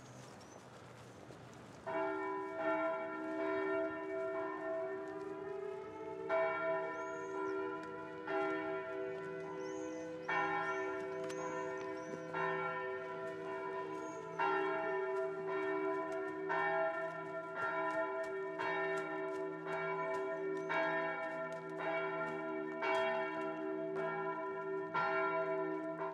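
Church bell ringing, starting about two seconds in; strikes come every two seconds or so at first, then about once a second, each one ringing on into the next.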